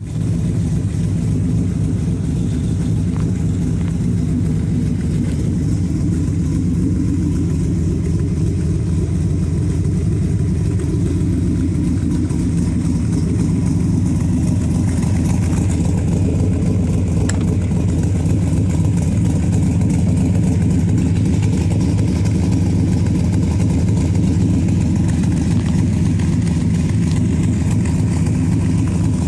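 1980 Corvette's 350 cubic-inch V8, fitted with a Lunati Voodoo cam, Vortec heads and stainless Doug's headers and side pipes, idling steadily through the side exhausts.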